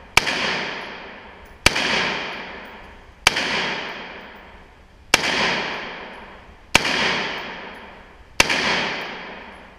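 Six AR-15 rifle shots in slow, steady succession, one every one and a half to two seconds, each sharp crack followed by a long echo off the walls of the indoor range.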